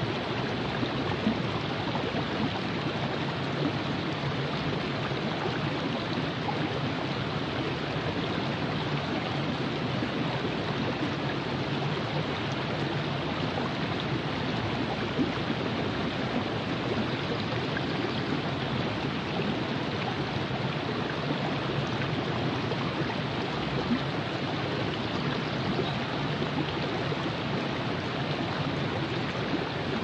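The Virgin River flowing: a steady, even rush of running water.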